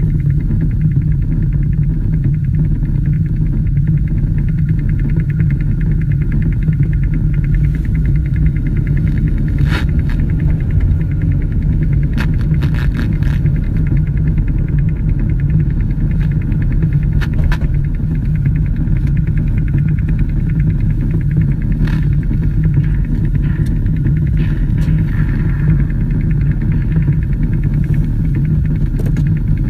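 Steady, loud low drone from a radio broadcast, a deep unbroken rumbling tone with a few faint clicks scattered through it.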